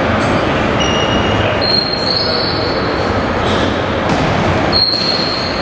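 Steady din of a tchoukball game in a sports hall, with voices and play echoing, and several short high squeaks, one about one and a half seconds in and another near the end.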